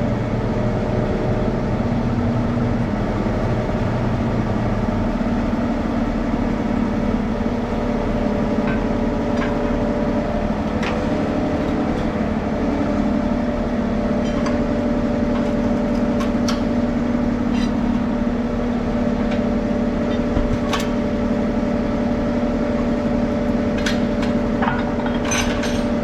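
An engine running steadily throughout, with scattered light clicks and knocks from tool work over it, more of them near the end.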